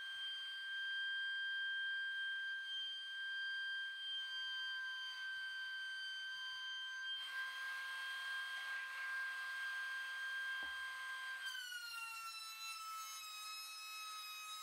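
DeWalt DW735 benchtop thickness planer running with a steady high-pitched motor whine over a light hiss. About eleven seconds in the whine drops in pitch and settles lower.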